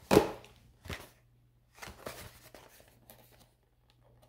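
Trading cards and their cardboard box being handled on a cork tabletop: a sharp knock at the start, a lighter one about a second in, then soft rustling of card and cardboard around two seconds in.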